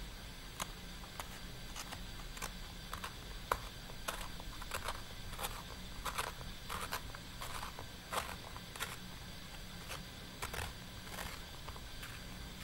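A wooden pencil being turned in a small blade pencil sharpener set into a plastic Tic Tac box. The blade shaves the wood in a series of short, irregular scraping rasps, about one or two a second.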